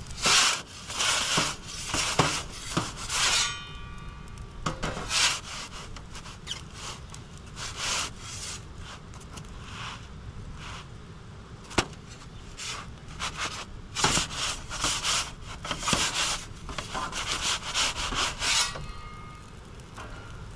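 Perforated stainless steel pizza peel scraping and sliding across the oven's baking stone in repeated bursts as the pizza is lifted, turned and slid back in, with one sharp click about twelve seconds in.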